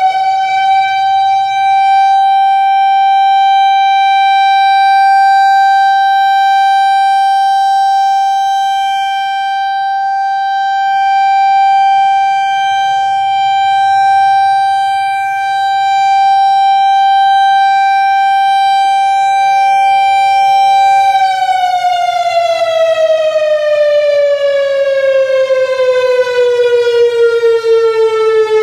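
Whelen WPS-3000-series electronic outdoor warning siren sounding a loud steady alert tone at one pitch with many overtones. About three-quarters of the way through, the tone starts sliding steadily down in pitch as the siren winds down.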